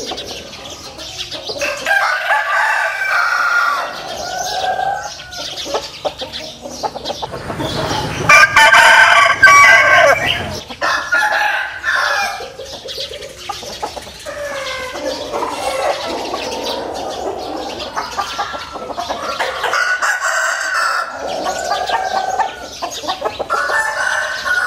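Several roosters crowing one after another and over one another, with clucking between the crows; the loudest crowing comes about eight to ten seconds in.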